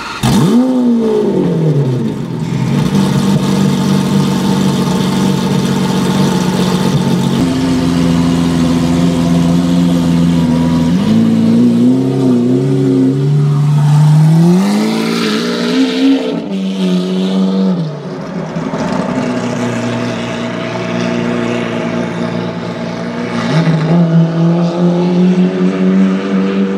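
Hamann Lamborghini Aventador's 6.5-litre V12 just after starting: the start-up flare falls away within the first two seconds and it settles to a steady idle. It then pulls away at low speed, its pitch rising and falling with several light throttle blips, and runs on steadily as it drives off.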